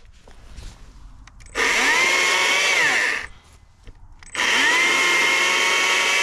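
Stihl MSA 120 C battery chainsaw run up twice. Each time the electric motor and chain whine rise quickly to speed, hold a steady pitch, then wind down. The second run starts about four seconds in.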